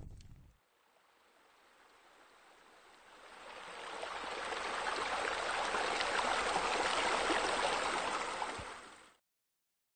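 Running, splashing water, like a stream of water falling into a pool, faint at first, swelling over a few seconds, then fading out about nine seconds in.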